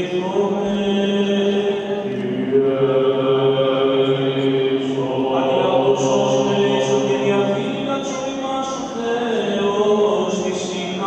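Byzantine liturgical chant of a Greek Orthodox wedding service: unaccompanied voices singing slow, drawn-out notes, with a low drone held under the melody from about two seconds in until about eight seconds.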